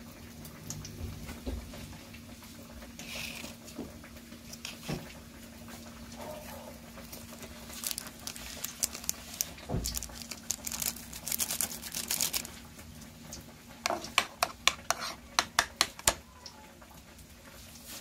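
Small kitchen handling noises from a spoon, bowl and ingredients being worked: light scratchy rustling, then a quick run of about eight sharp clicks or taps over two seconds near the end, over a faint steady hum.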